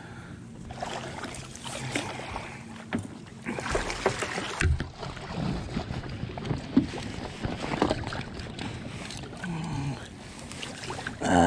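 A large blue catfish splashing at the water's surface beside a boat as it is pulled in to be lip-gripped, with irregular splashes and occasional knocks.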